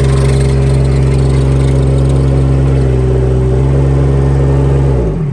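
Bobcat E20 mini excavator's Kubota diesel engine running steadily, just started after warming the glow plugs. Near the end its pitch drops sharply as the engine speed falls, then picks back up.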